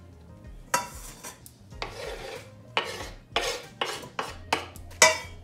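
Kitchen knife cutting chives on a cutting board: about a dozen short scraping strokes at an uneven pace, with one longer scrape about two seconds in.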